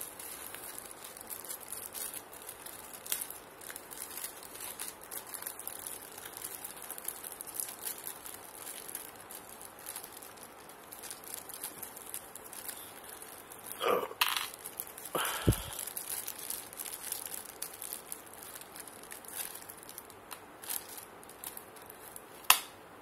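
Small clear plastic bag of screws and cable terminals crinkling as hands handle and open it, with a few louder rustles partway through and a sharp click near the end.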